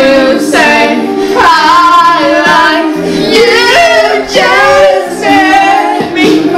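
A song with a female singing voice over instrumental backing, loud and continuous.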